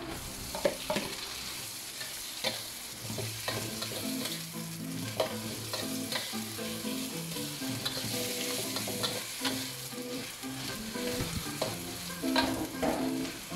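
Sliced banana flower dropping into a hot wok of shrimp sauce and sizzling as it fries, with a metal spatula scraping and clacking against the wok as it is stirred.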